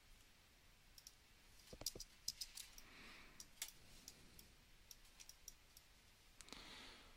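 Faint clicks of a computer mouse and keyboard, a scattered cluster of short sharp ticks about two to four seconds in, over near-silent room tone.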